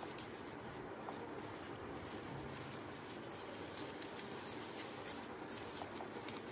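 Fabric pouch being handled and turned right side out: soft cloth rustling with a few faint light clicks, the sharpest about five and a half seconds in, over a steady low hiss.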